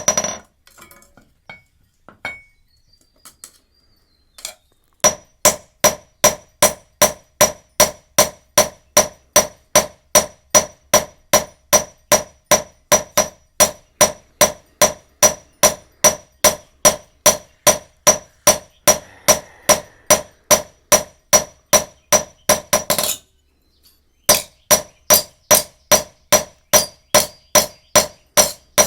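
Hand hammer striking iron on an anvil in a steady rhythm of about three ringing metallic blows a second. After a few light taps at the start, the hammering picks up about five seconds in, stops briefly near the end, then resumes.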